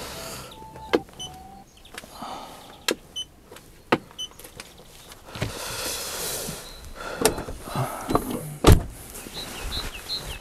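A Skoda Octavia A5's door and door latch being worked by hand, giving a string of sharp clicks and knocks, with the loudest and deepest knock near the end.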